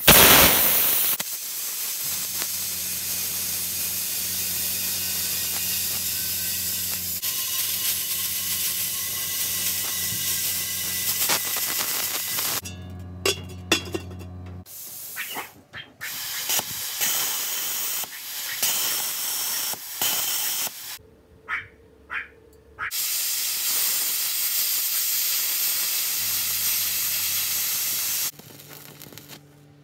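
Plasma cutter cutting through the steel of a butane gas bottle: a loud steady hiss of air and arc over a low electrical hum. Midway it keeps cutting out and restarting in short bursts, then runs steadily again and stops near the end.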